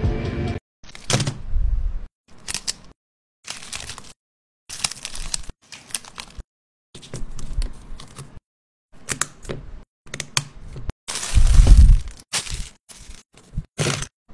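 Packaging being handled during an unboxing: tearing, crinkling and cracking in a string of short separate bursts, with dead silence between them. The loudest burst comes a little past the middle.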